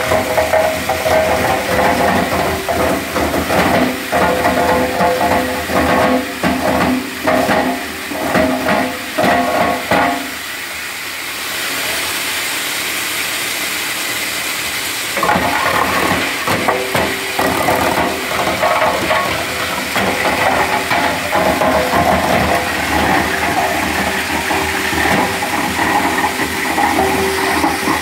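Wood crusher machine running loud while grinding wood into sawdust, a dense, irregular crackling rattle over a steady hum. About ten seconds in, the crackling stops and the machine runs on with a smooth, steady hiss for a few seconds before the grinding resumes.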